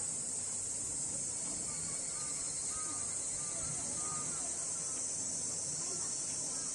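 Cicadas droning in the surrounding trees: a steady, high, unbroken buzz.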